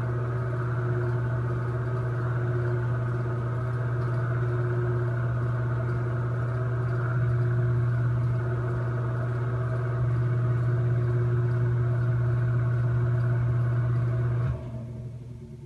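Noisy bathroom exhaust fan running with a loud, steady hum. A little over a second before the end the sound cuts off sharply and fades away as the fan winds down.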